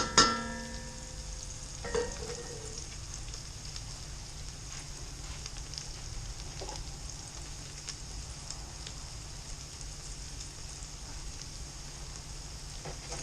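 Garlic sizzling in a hot pan, a steady fine crackling hiss. A ringing clink sounds at the start and a smaller one about two seconds in.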